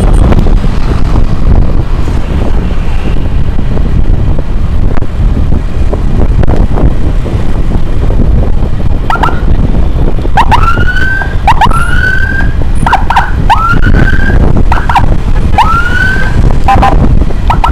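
Steady wind and road rush from a moving motorcycle. About halfway through, an electronic emergency siren starts sounding a run of short rising sweeps, roughly one a second, some cut short.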